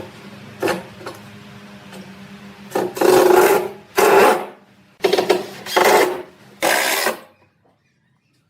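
Hand tool scraping across wood in five rasping strokes, about one a second, over a faint steady hum, with a couple of short knocks at the start; it all stops shortly before the end.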